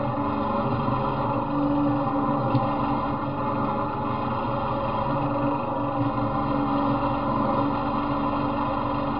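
Off-road riding mower's engine running at a steady speed as the mower drives along a slushy, snowy trail.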